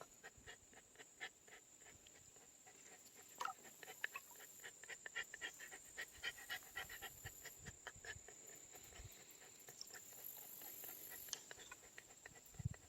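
A small dog panting steadily in quick, faint breaths.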